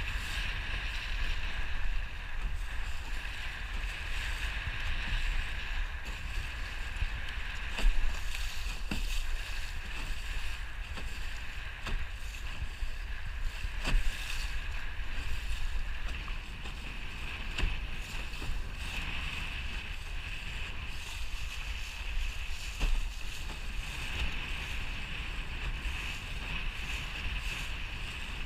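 Fireball racing dinghy under sail in choppy water: a steady wash of water rushing past the hull mixed with wind rumbling on the camera's microphone, broken by a few sharp knocks as the bow slaps into waves.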